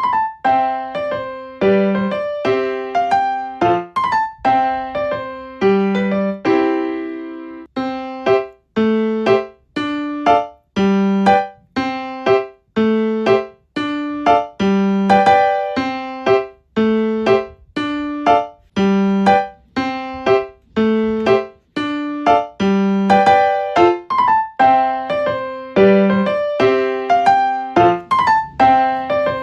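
Background piano music: a simple, steady tune of ringing notes over a repeating bass note.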